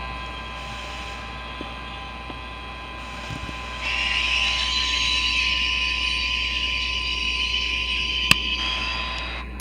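NJ Transit ALP-46A electric locomotive running, with a steady electrical whine of several tones. About four seconds in, a louder hiss starts suddenly and holds for about five seconds, with a single sharp click near the end.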